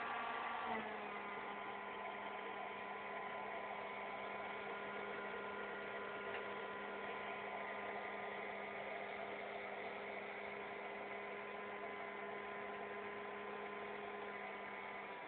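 A homemade juice-can jet engine rig running with a steady hum: several fixed tones over a rushing hiss. The pitch steps down slightly about a second in.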